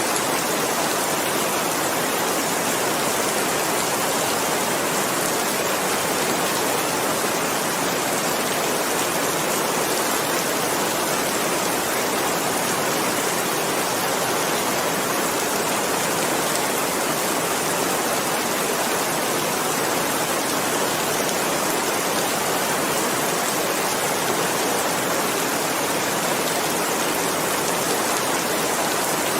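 Steady, even rain, a dense hiss of drops with no distinct single drops or breaks.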